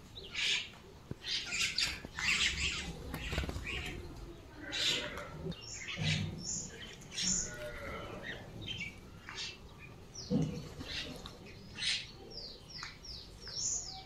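Mynas and crows calling: short harsh squawks and chirps, one after another and overlapping, with a quick run of about five falling notes near the end.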